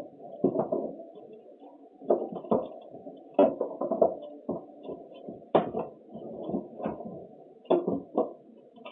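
Irregular muffled thumps and knocks, a dozen or so spread unevenly, with small clicks among them.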